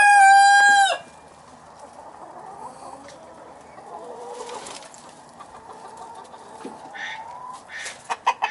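Young Easter Egger rooster ending a crow on a loud held note that cuts off about a second in. After it comes quieter clucking from the flock, with a few sharper clucks near the end.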